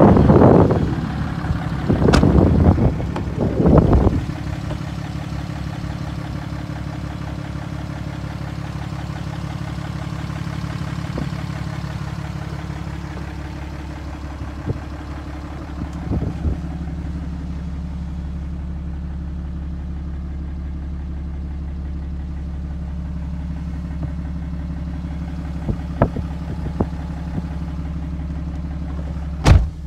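2009 Dodge Ram 2500's 6.7-litre Cummins inline-six turbo diesel idling steadily, heard from inside the cab. Loud handling bumps and rustling in the first few seconds, and a sharp knock near the end.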